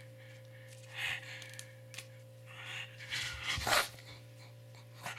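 A pug panting and breathing hard in irregular bursts, excited while waiting for a treat; the loudest burst comes a little past halfway. A steady low electrical hum runs underneath.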